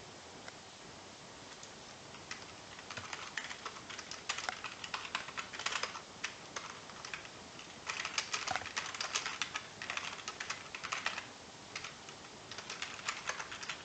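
Typing on a computer keyboard: quick runs of keystroke clicks starting a couple of seconds in, with short pauses between the runs.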